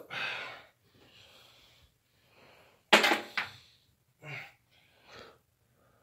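A man's heavy, wheezy breaths and sharp exhales as he strains with his arms overhead, the loudest about three seconds in.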